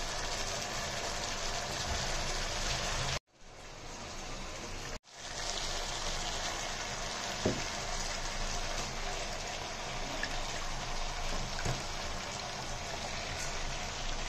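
Sliced vegetables sizzling steadily in a pan with a little liquid sauce. The sound cuts out for about two seconds about three seconds in.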